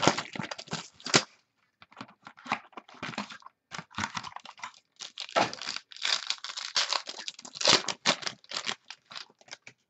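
A trading-card pack's foil wrapper being torn open and crinkled by hand: irregular crackling rustles broken by short pauses.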